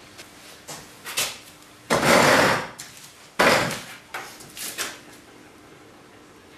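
Hand tools being handled on a metal workbench: scattered clicks and knocks, with two longer, louder rattles about two and three and a half seconds in, then a few more taps before it goes quiet.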